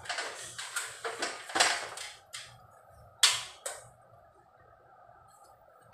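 Hard plastic parts of a wall-mounted split-type air conditioner being handled: the loose louver flap clatters for a couple of seconds, then a sharp plastic click a little past three seconds in, followed by a second, smaller click.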